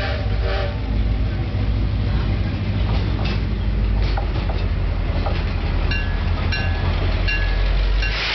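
Taiwan Railway S400-class diesel locomotive running past with a deep, steady engine rumble and scattered clanks of wheels on rail. The tail of its horn blast ends about half a second in.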